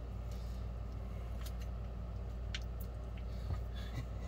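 A few light clicks and taps from handling a small metal ration tin whose pull tab has torn off, over a steady low hum.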